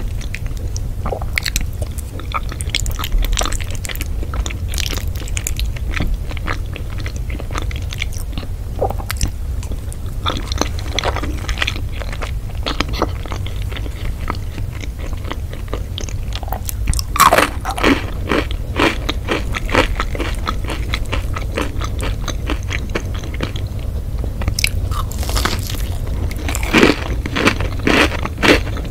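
Someone biting and chewing crunchy food close to the microphone: a run of crisp crunches, busiest about two thirds of the way through and again near the end, over a steady low hum.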